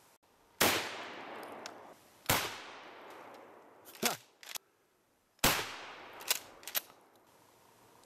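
Three loud gunshots, the first about half a second in, the next about two seconds in and the last about five and a half seconds in, each followed by a long echo dying away. Between them come several shorter, quieter sharp cracks.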